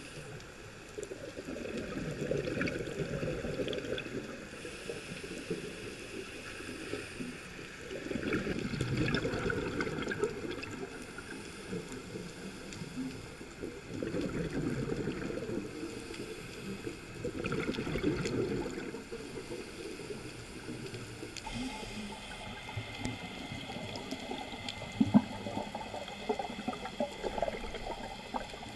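Scuba breathing through a regulator, heard underwater: exhaled bubbles rush out in four bursts a few seconds apart. After about 22 s the sound turns to a steadier, higher hiss with scattered clicks and one sharp click.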